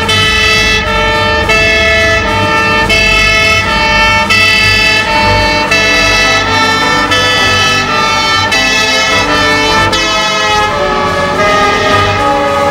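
Fire engine's two-tone siren alternating between a high and a low pitch about every three-quarters of a second, with the truck's engine rumbling underneath as it approaches and passes.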